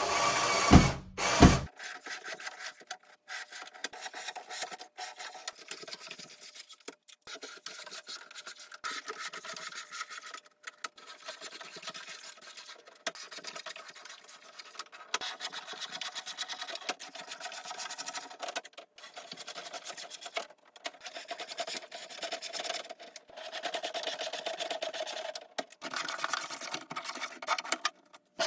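A few sharp knocks, then irregular scraping and rubbing strokes against a hard surface, like sanding or filing, with short pauses between strokes.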